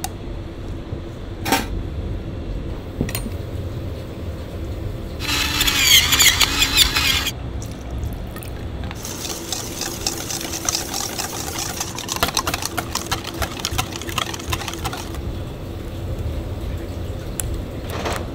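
Liquid poured into a plastic blender jar, splashing for about two seconds: the loudest sound. Later comes a longer, softer hiss with crackling, and there is a sharp click near the start.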